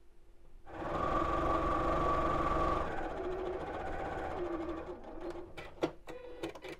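Electric sewing machine stitching a seam, starting about a second in, easing off about three seconds in and stopping around five seconds, followed by a few sharp clicks.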